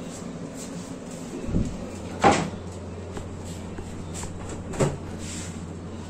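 Three dull knocks or bangs, like a cupboard door shutting, the loudest a little over two seconds in, over a steady low hum.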